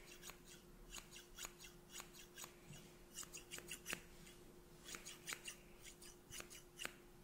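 Hairdressing scissors snipping close to the microphone: repeated quick, crisp snips, a few a second, in irregular runs.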